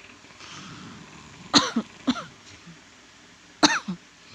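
A person coughing twice, about two seconds apart, each a sudden loud burst with a smaller one after the first.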